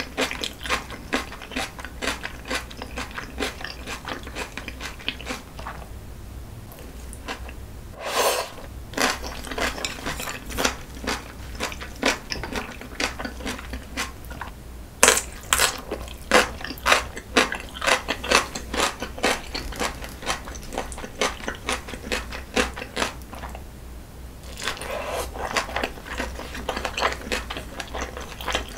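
Close-miked eating sounds: steady wet chewing and smacking of noodles and seafood, with crisp crunches of yellow pickled radish (danmuji), the loudest crunch about halfway through. Chewing pauses briefly twice.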